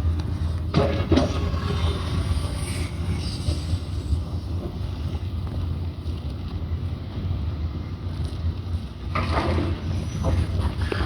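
Heavy diesel engines of an excavator and a dump truck running with a steady low rumble. Short bursts of clanking and scraping come about a second in and again near the end.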